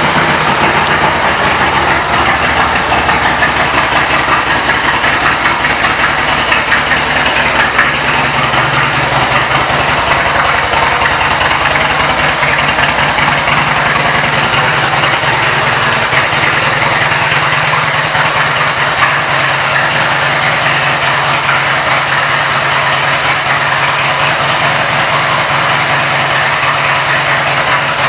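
A 2004 Harley-Davidson Road King Custom's Twin Cam 88 V-twin, fitted with a Vance & Hines aftermarket exhaust, idling steadily just after being started.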